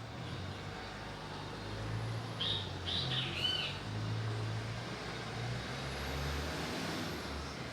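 A quick run of four or five short, high bird chirps about two and a half seconds in, over a steady low rumble.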